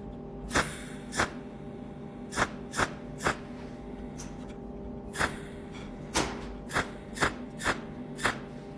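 A series of about a dozen sharp taps or clicks at irregular intervals, over a steady electrical hum.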